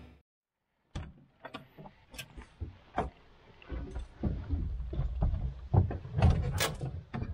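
Irregular clicks, knocks and rattles with rustling of someone moving about and handling things inside a tractor cab. They start about a second in.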